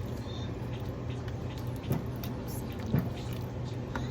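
Kitchen cooking sounds over a steady low hum, with two sharp knocks about a second apart, like a spoon striking a pot while the kare-kare peanut sauce is stirred.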